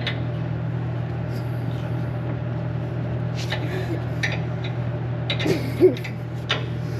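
Steady low machine hum, with a few sharp metallic clicks and knocks from work on the blade's skid hardware.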